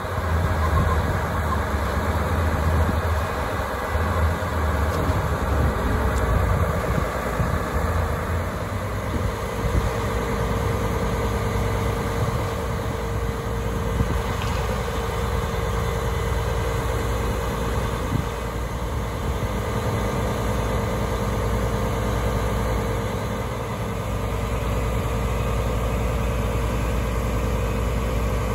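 Diesel engine of a 2006 Mercedes-Benz Actros vacuum truck running steadily while the tipped-up debris body is lowered. A deep rumble is strongest over the first several seconds and then eases. A steady tone joins about nine seconds in.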